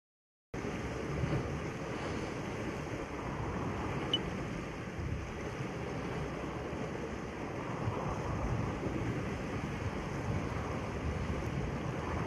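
Waves washing against a rocky shore, with wind on the microphone: a steady wash that starts suddenly about half a second in and swells and eases slightly throughout.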